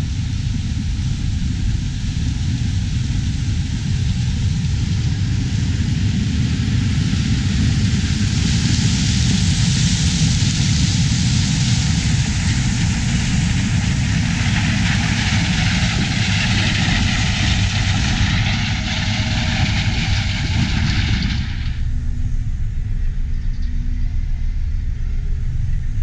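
John Deere S670 combine harvesting corn: a steady low rumble with a loud hiss over it. A few seconds before the end the hiss drops away, leaving the low rumble.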